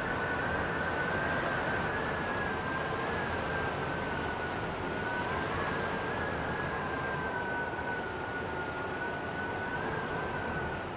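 Strong wind blowing with a steady rushing hiss and a high whistling howl whose pitch wavers slowly up and down.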